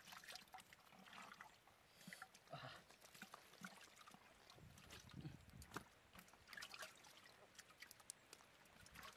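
Faint wet squelching and scraping of a hand digging in a muddy hole, with scattered small clicks and taps.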